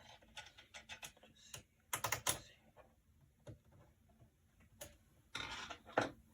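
Irregular light clicks and taps of small screws and metal computer-case parts being handled. There is a cluster of louder clicks about two seconds in and a short rustle near the end.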